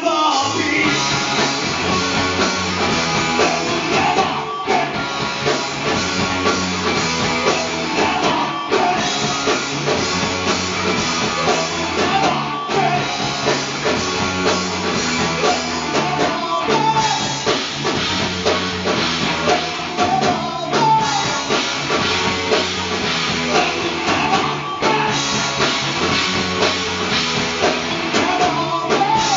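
Rock band playing live: electric guitars, bass and drum kit, with lead vocals. The music dips briefly about every four seconds, like short stops in the riff.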